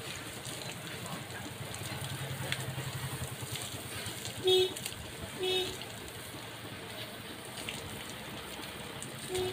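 Pressure-washer jet hissing steadily as it sprays against the steel underside of a raised tipper lorry body. Two short, loud beeps sound about a second apart near the middle, and two more come near the end.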